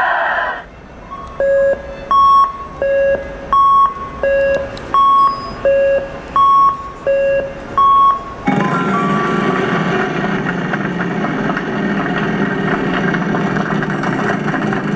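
Wheel of Fortune slot machine sounding an electronic two-tone chime, about ten beeps alternating between a low and a high note, roughly one every three-quarters of a second. About eight seconds in, a steady, loud, noisy wash of sound cuts in suddenly and carries on.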